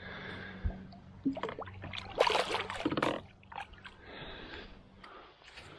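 A released golden perch splashing into the lake, a loud burst of splashing lasting about a second from roughly two seconds in, with smaller water sounds and knocks around it.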